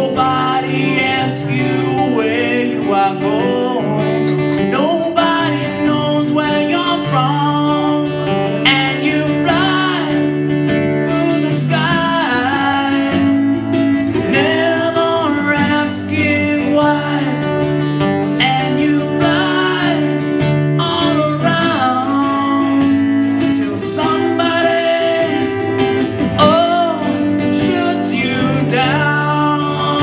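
A man singing a melody at a microphone over a strummed steel-string acoustic guitar, played live.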